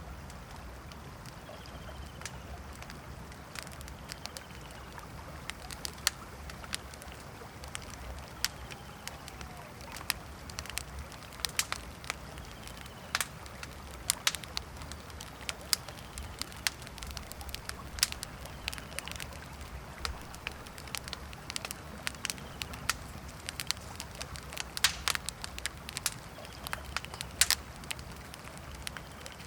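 Wood campfire crackling, with frequent sharp pops that come thicker after the first few seconds, over the steady rush of a river.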